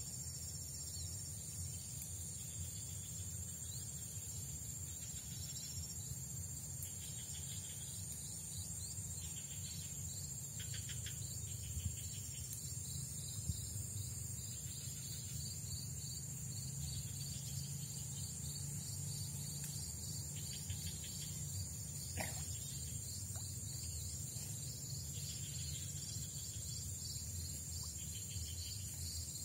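Steady high-pitched chorus of crickets and other insects, with trains of quicker chirping now and then, over a low steady rumble.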